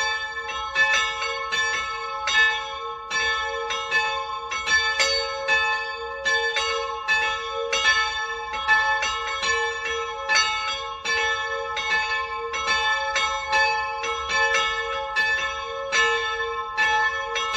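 Full peal of two church bells tuned to a'' and c-sharp''', one cast in Salzburg by Johann Oberascher in 1779 and the other by Benedict Eisenberger in 1693, swinging together. Their strokes fall in a quick, uneven stream, about two or three a second, overlapping, and the tones hang on between strikes.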